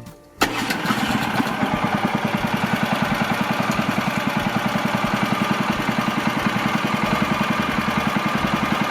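The engine of a Woodland Mills HM130MAX portable bandsaw mill running steadily with a fast, even pulse. It comes in abruptly about half a second in.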